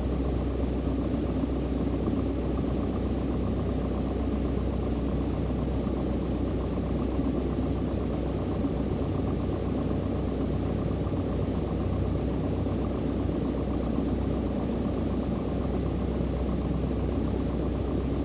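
Grumman AA-5B Tiger's four-cylinder Lycoming O-360 engine and propeller running at low power, a steady drone heard inside the cockpit, as the plane rolls out slowly on the runway after landing.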